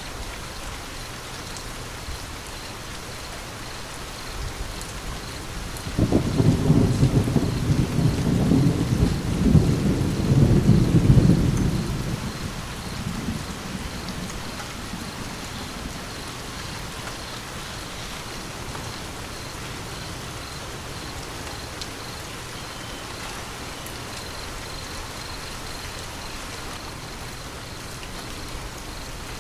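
Steady rain falling, with a thunderclap about six seconds in that rumbles low and loud for several seconds before dying away.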